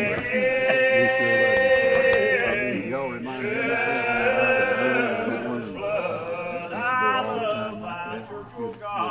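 Congregation singing a lined-out hymn a cappella in the slow Old Regular Baptist style: several voices hold long notes that bend slowly from pitch to pitch.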